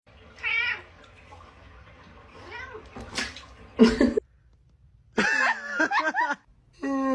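A cat meowing and yowling, a string of separate wavering calls with the loudest about four seconds in, and a long call falling in pitch starting near the end.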